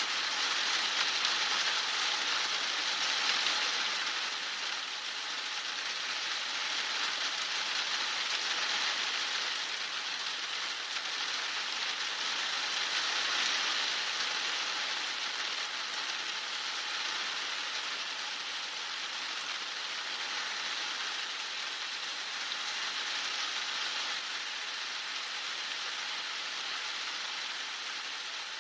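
Heavy rain falling steadily, a dense hiss of drops that swells and eases a little in strength.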